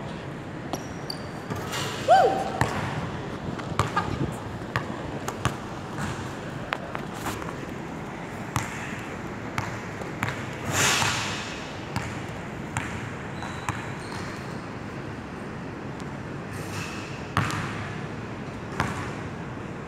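A basketball bouncing on a hardwood gym floor, irregular sharp thuds about once a second, echoing in the large hall.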